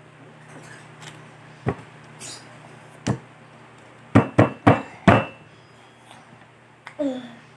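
A series of sharp knocks: two single ones, then four in quick succession about halfway through, followed near the end by a short squeak that falls in pitch.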